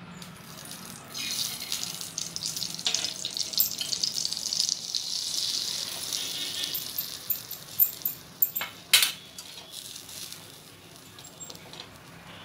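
Oil and butter sizzling on a hot flat tawa: a loud hiss starts about a second in, then fades after about six seconds. Near the end come a few sharp clicks and knocks.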